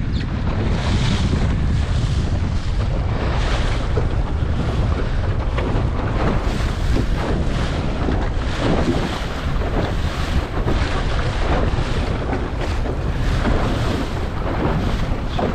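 Strong wind buffeting the microphone with a steady low rumble on a small sailing dinghy in rough water, with repeated splashes and rushes of waves against the hull.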